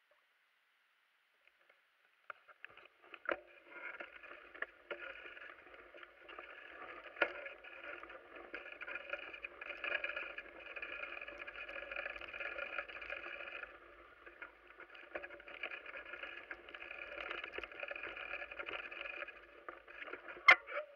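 Wheels rolling over a loose gravel forest road on a downhill ride. It starts about two seconds in as a steady rough rolling noise, with occasional knocks and a sharp clack near the end.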